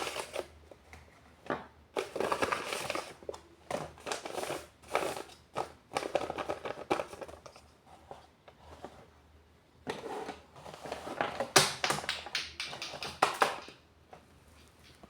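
Paper crinkling and rustling in irregular bursts as a handmade paper blind bag is handled and opened, with a cluster of sharper crackles a little over two thirds of the way in.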